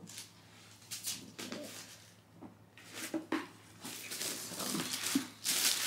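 Rustling and crinkling of gift packaging as a shoe box is unpacked, in several short bursts, with a couple of soft low vocal sounds.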